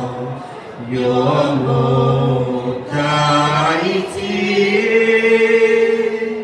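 A group of men and women singing together without accompaniment: slow phrases of long held notes, each breaking off briefly before the next begins.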